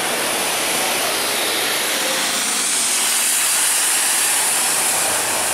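Scania K230UB single-deck bus pulling away, its engine noise buried under a loud, steady hiss that swells about three seconds in.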